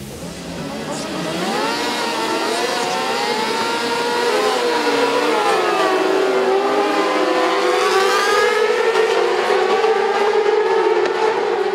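Several racing sport-bike engines revving together on the starting grid, many overlapping pitches rising and falling independently. In the last few seconds the revs settle into a steadier, held note.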